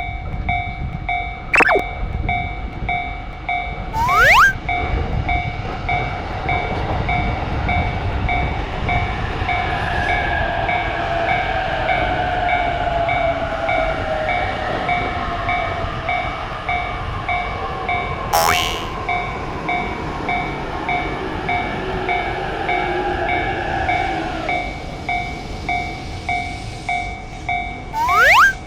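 Japanese railroad crossing warning bell ringing in a steady repeating rhythm while an electric train passes, its motor whine falling in pitch and fading out about 25 seconds in. Brief rising tones with sharp clicks come around 4 seconds in and again near the end.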